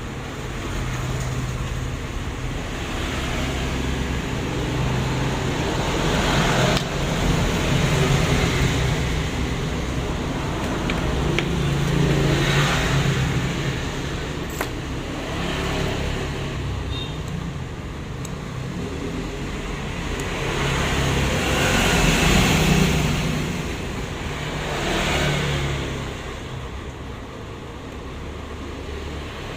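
Road traffic passing by: several vehicles in turn, each one swelling and fading over a few seconds, over a steady low hum.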